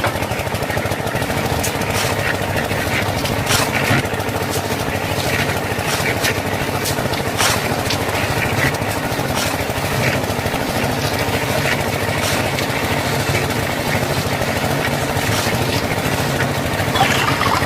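A small electric motor in a DIY model machine running steadily, with a fast buzzing rattle and a few sharper clicks.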